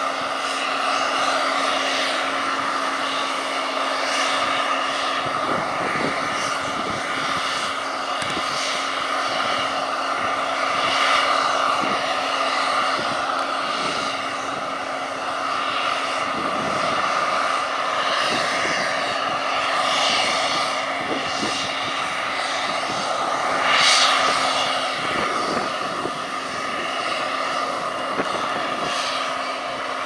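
Case IH Axial Flow 9230 combine harvester running under load, cutting and threshing wheat while unloading grain through its auger, with a Massey Ferguson 6499 tractor and grain trailer running alongside. A steady machine drone with a held hum, swelling briefly about three-quarters of the way through.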